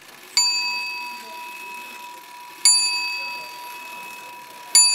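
A clock bell striking three times, about two seconds apart, each strike ringing on and slowly fading.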